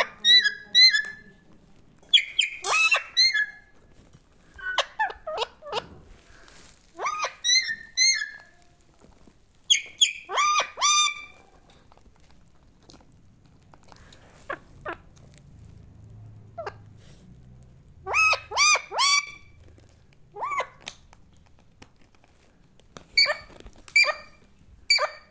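Alexandrine parakeet giving short, quick calls in clusters of two to five notes, one cluster every two to three seconds.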